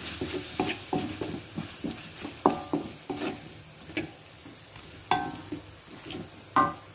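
Wooden spatula stirring and scraping spice paste frying in a metal wok, with a light sizzle underneath. The scrapes and knocks come irregularly, a few with a brief ringing tone; the loudest is about two and a half seconds in.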